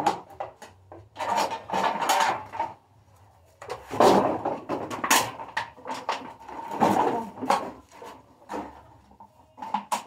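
Plastic bottles and bags crinkling and clattering as recyclables are picked up and sorted by hand, in irregular bursts with sharp clicks.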